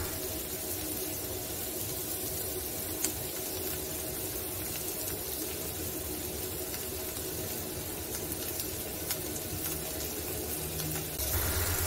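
Sliced onions and green capsicum frying in oil in a pan, a steady sizzle, with a small click about three seconds in.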